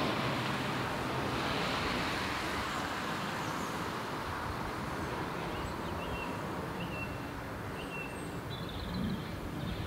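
Steady outdoor wind noise, with a few short, high bird chirps in the second half.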